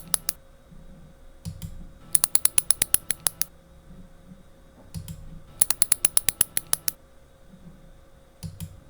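A recording of a matraca (wooden ratchet rattle) played back sped up: two bursts of rapid, sharp clacks, about nine a second for over a second each, each burst preceded by a softer low rattle.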